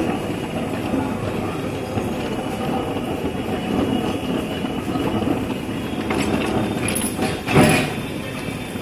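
Large planer machine running: a steady mechanical rumble and clatter, with a brief louder burst of noise about seven and a half seconds in.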